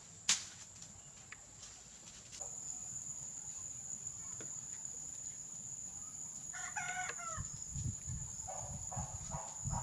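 A rooster crows once, a short call about two-thirds of the way in, over a steady high-pitched drone that starts a couple of seconds in.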